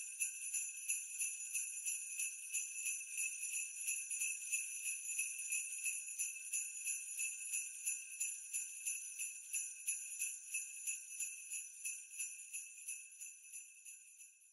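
Jingle bells shaken in a steady rhythm, about three to four shakes a second, with a bright high ringing that fades out near the end.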